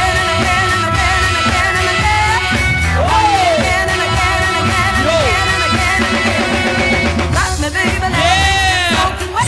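Funk music with singing over a steady beat, played loud through the venue's sound system.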